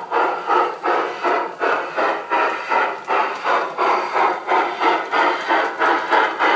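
Sound module of an LGB 20892 G-scale Sumpter Valley 2-6-6-2 model steam locomotive playing steady steam chuffs, about three a second, as the engine runs.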